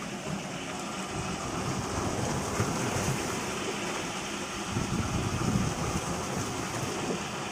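Electric blender running steadily, its motor and blades grinding sambal ingredients with a rough, even noise.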